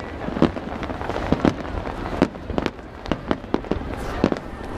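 Aerial fireworks bursting overhead: a rapid, irregular series of sharp bangs, a dozen or more in under five seconds, with crackle between them.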